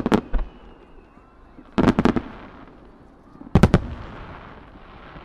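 Starmine fireworks display: aerial shells bursting in quick groups, a few sharp bangs at the start, a cluster of booms about two seconds in and another near four seconds. Each group trails off in a rumbling echo.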